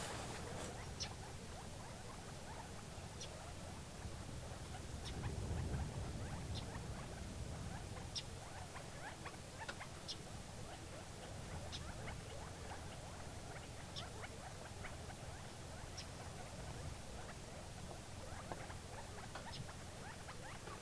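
Faint, short, high chirps of small birds, scattered about once a second, over a low rumble.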